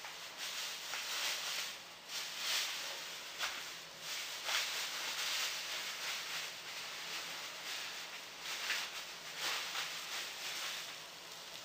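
Floured cod loin sizzling gently in a nonstick frying pan: a soft, crackling hiss that swells and fades in irregular waves.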